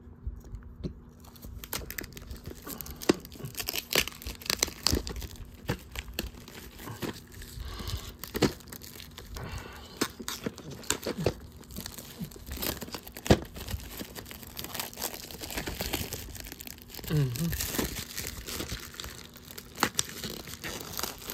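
Plastic and packaging crinkling and rustling in the hands, with many small irregular clicks and snaps as a VHS tape case is handled and opened.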